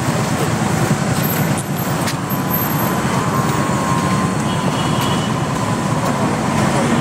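Steady road traffic noise, a continuous low rumble of vehicles passing on a city avenue.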